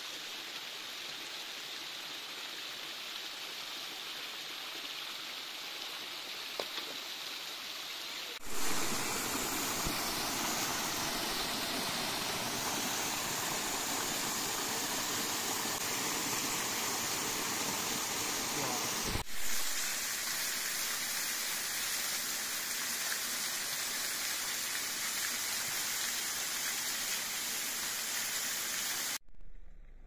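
Mountain waterfall pouring down a rock face: a steady rush of falling water. It jumps louder about eight seconds in, shifts again near nineteen seconds and falls away abruptly just before the end as the shots change.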